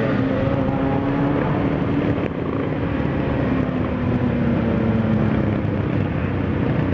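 Motorcycle engines on a slow group ride, led by the camera bike's own engine (a Yamaha XJ) running steadily at low road speed. Its note eases down a little about four seconds in.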